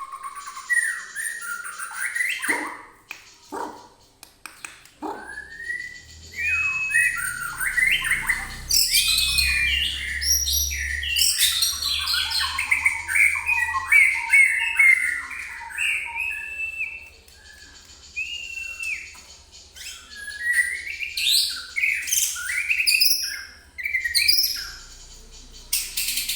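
White-rumped shama (murai batu) singing a fast, varied stream of whistles, chirps and sweeping notes, the agitated song of a fired-up male, used as a lure recording to provoke other shamas into singing.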